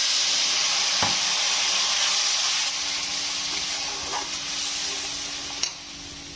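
A little water poured onto fried spice masala in a hot pan hisses in a loud sizzle that slowly dies down over about five seconds as a metal spatula stirs. After that it settles into a quieter bubbling, with a click of the spatula.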